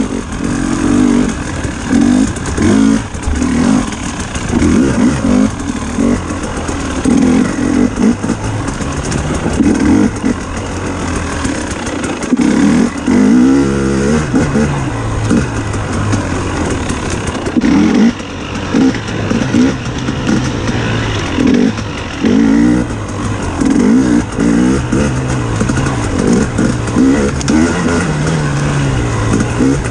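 Dirt bike engine revving in repeated bursts as the throttle is opened and closed, its pitch rising with each burst and dropping back between them, while the bike rides a rough trail.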